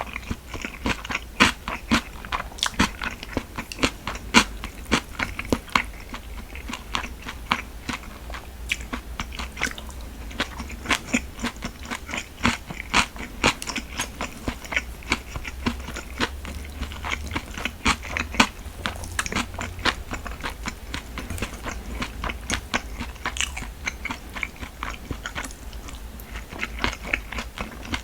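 Close-miked eating: a person chewing and biting rice food, with many small wet mouth clicks coming irregularly several times a second, over a faint steady low hum.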